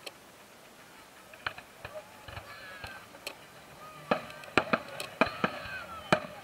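Fireworks shells bursting: a few separate sharp bangs, then a quicker run of louder bangs from about four seconds in.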